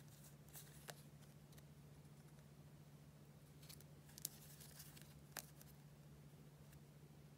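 Paper sticker sheets being handled and shuffled: faint rustles with a few short crisp ticks, the sharpest about four seconds in, over a low steady hum.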